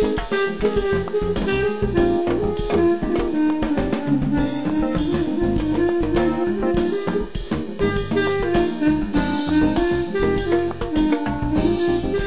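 B-flat clarinet playing a samba melody over a play-along backing track with drum kit and bass.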